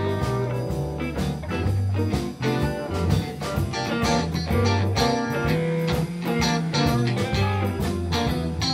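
Live blues band playing: electric guitars over bass guitar and a steady drum beat, with keyboard.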